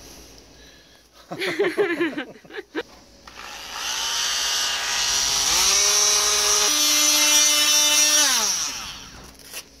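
Corded oscillating multi-tool with a triangular sanding pad starts up, runs steadily while sanding paint off the base of a sailboat mast, then winds down and stops near the end. Its pitch drops a step partway through the run.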